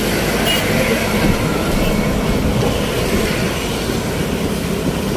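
Road traffic rumbling past close by: a large bus and motor scooters overtaking, with engine and tyre noise in a steady, dense rumble.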